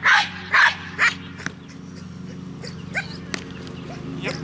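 A dog barking in a fast, even rhythm, about two barks a second, stopping about a second in; after that a few short, high whines and a single sharp crack.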